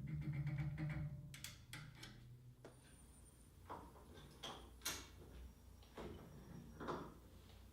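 A hand tool being worked and handled: a quick run of fine clicks over a low hum in the first second or so, then scattered single clicks and light metal knocks.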